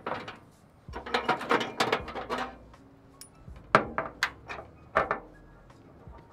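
Metal clatter and sharp clicks from a two-burner propane camp stove being set up: parts rattling as the regulator is taken out of the stove, then clicks as it is fitted into the stove's side.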